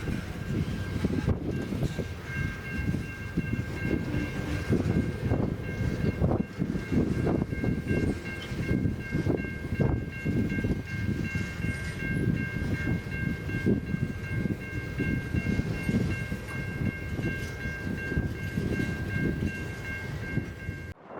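Freight train rolling past, with wind buffeting the microphone in low, gusty rumbles. From about two seconds in, a steady three-note tone sounds until the very end, where everything cuts off abruptly.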